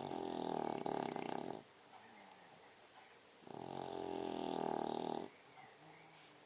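Young English bulldog snoring in her sleep: two long snores of about two seconds each, the second starting roughly two seconds after the first ends.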